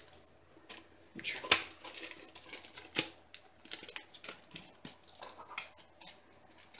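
Clear plastic sleeve crinkling and card stock rustling as a greeting card is handled and slid out of its sleeve: scattered short crackles and clicks, the loudest about a second and a half in.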